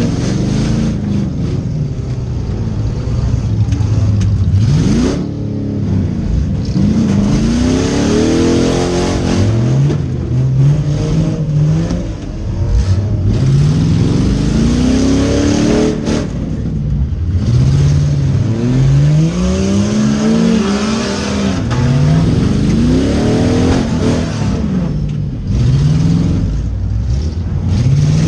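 Demolition derby car engine revving hard and easing off over and over, its pitch rising and falling every couple of seconds as the car accelerates, brakes and reverses.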